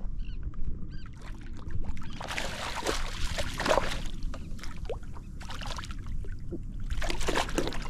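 Hooked speckled trout splashing and thrashing at the water's surface beside a kayak, in several bursts, the longest about two to four seconds in and another near the end.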